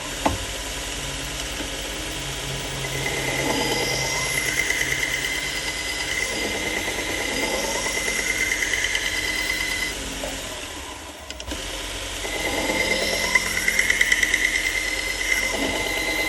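AMK-75 belt knife sharpener starting up and running steadily on a fine 1200-grit 3M Trizact belt, with a knife blade ground against the belt in two long passes, adding a high, steady grinding whine. There is a brief lull about eleven seconds in between the passes.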